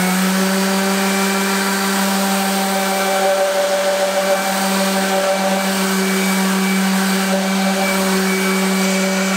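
Bosch random-orbit sander running at a steady speed with 180-grit paper, sanding rust and grime off a table saw's metal rip fence. It gives a steady whine.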